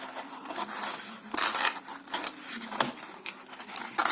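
Packaging being handled while a box is unpacked: rustling and small clicks, with a louder rustle about a second and a half in and another near the end.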